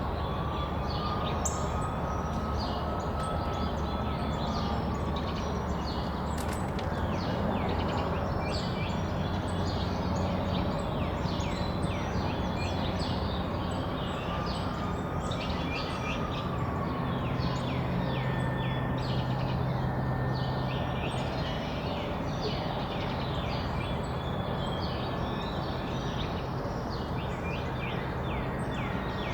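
Many small songbirds chirping at once, with short, sharp overlapping calls all the way through, over a steady low background rumble. A faint tone slowly rises and falls twice.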